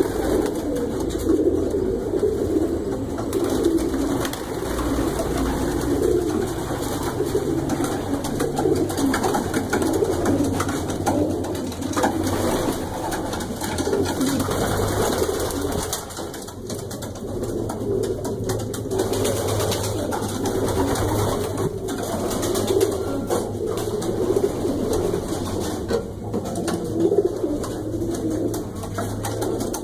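Many racing pigeons cooing together, a dense, continuous overlapping chorus of low coos.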